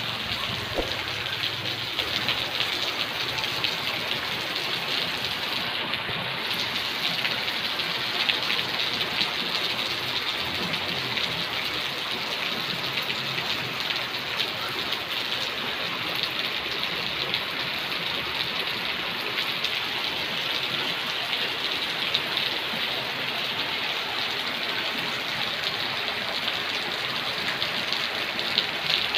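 Heavy rain pouring steadily onto a paved road and puddles, an even hiss of drops.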